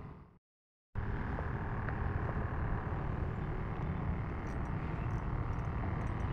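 Steady outdoor background noise, a low rumble with a hiss, broken by about half a second of dead silence just after the start. A few faint ticks near the end.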